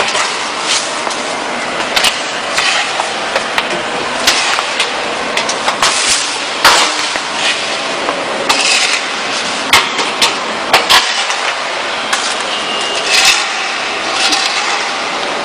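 Irregular knocks and clicks of parts being handled during the solar water heater installation, over a steady rushing background noise.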